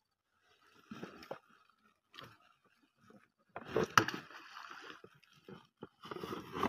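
Water sloshing and splashing in irregular bursts, as of people wading and moving in shallow water and mud, with one sharp knock about four seconds in.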